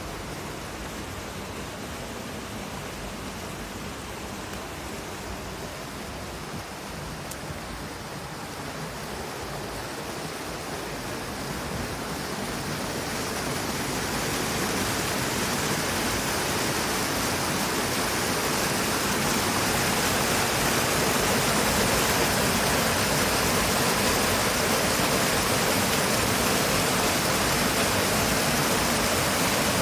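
River water cascading over rocks into a pool, a steady rushing hiss that swells louder from about halfway through as the falls come near.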